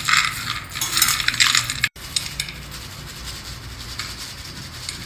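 Dry-roasted peanuts clattering and scraping against a stainless steel pan as they are rubbed by hand to loosen their skins. About two seconds in the sound cuts off sharply to a quieter, steady rustle with faint clicks.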